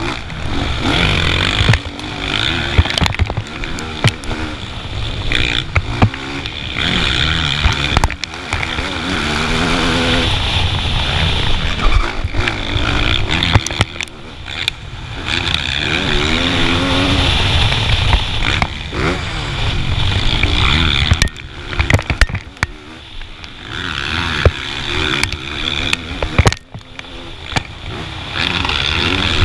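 Motocross bike engine at race speed, revving up and falling back again and again through the gears, with sharp knocks now and then.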